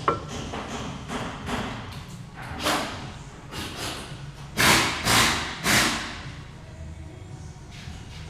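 Hand work on a car's brakes: a sharp metallic clank, then a series of short noisy strokes, the loudest three in quick succession about halfway in.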